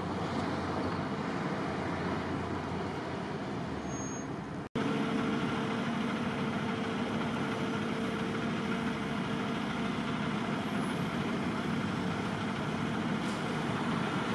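Steady street traffic noise: motor vehicles running and passing on the road. About five seconds in the sound drops out for an instant at an edit and comes back slightly louder.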